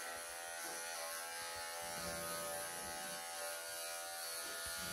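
Wahl professional electric pet clippers running with a steady hum.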